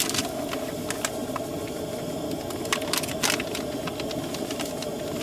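Coleman propane camp-stove burners hissing steadily, with a few short rustles and taps as instant potato flakes are poured from a packet into a saucepan.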